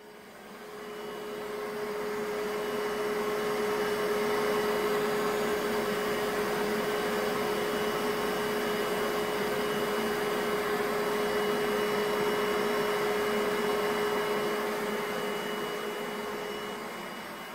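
Bissell SpotBot carpet spot cleaner running: a steady motor hum with one strong low tone and a faint high whine. It fades in over the first few seconds and tapers off near the end.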